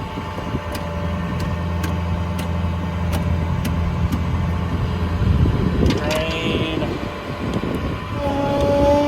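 A Ford F550's 6.0 Power Stroke V8 diesel runs steadily with the PTO engaged, driving the hydraulics for the crane and compressor. Light ticks come about twice a second for the first few seconds. Near the end a steady whine joins in.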